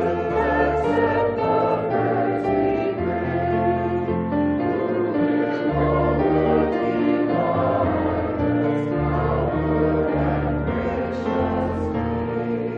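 Choir singing a hymn in held chords over sustained low bass notes.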